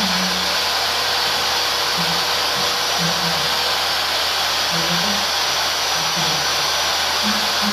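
Homemade wooden-framed table saw running steadily as a large wooden sheet is fed through it: a continuous loud hiss of the blade cutting, with a thin steady high tone over it.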